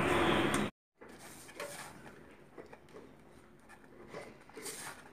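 A steady hiss that cuts off abruptly under a second in, then near silence with a few faint, soft rustles of hands kneading wheat-flour dough in a bowl.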